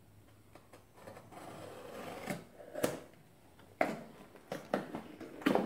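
Cardboard shipping box being opened by hand: packing tape and cardboard tearing and scraping, with a few sharp cardboard snaps as the flaps are pulled loose.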